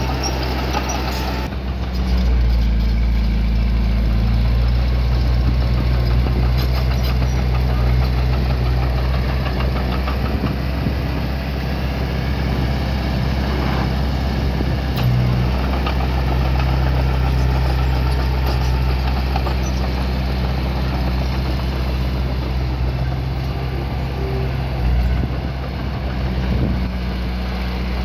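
Diesel engine of heavy earthmoving equipment running steadily, getting louder about two seconds in.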